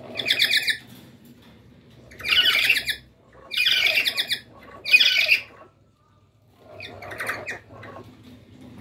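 Black-capped lory giving harsh, screeching squawks in five bursts, each under a second, the last one weaker.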